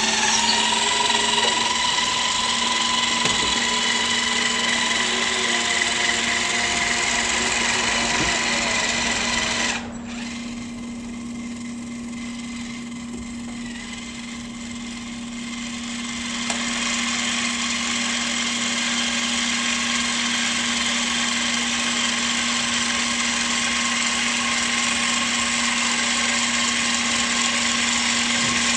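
Electric motors and gearboxes of a radio-controlled model Caterpillar 5110B excavator whining as it swings its upper body and moves on its tracks. The whine drops suddenly about ten seconds in and comes back some six seconds later.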